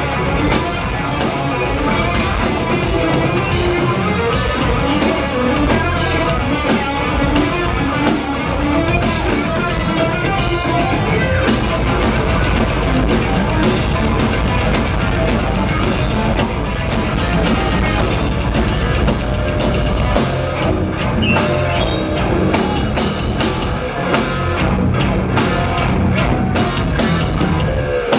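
Live progressive metal band playing loudly: electric guitar, keyboards, bass guitar and a drum kit, as heard from within the crowd.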